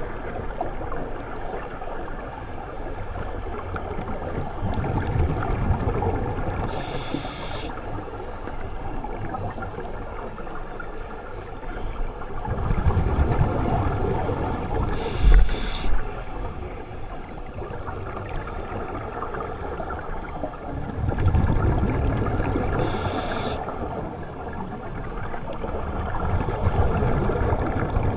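Scuba regulator breathing heard underwater: a short hiss of inhalation about every eight seconds, three times, with the low rumbling gurgle of exhaled bubbles between them. A sharp knock near the middle is the loudest moment.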